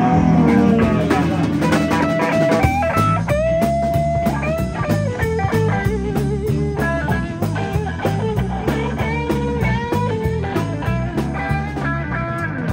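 Live blues-rock band playing: an electric guitar carries a lead line of bent, sustained notes with vibrato over bass guitar and a drum kit with steady cymbal strokes.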